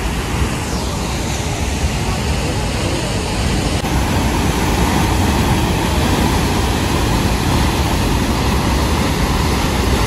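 Aharbal waterfall rushing through a rock gorge into its plunge pool: a loud, steady wash of water noise that grows a little louder about four seconds in.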